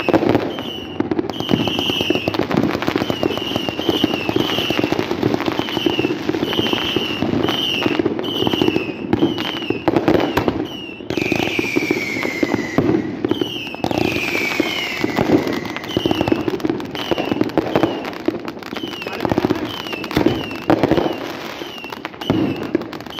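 Fireworks going off close by: a dense, continuous run of crackles and bangs. Short high falling whistles repeat throughout, with two longer falling whistles about halfway through.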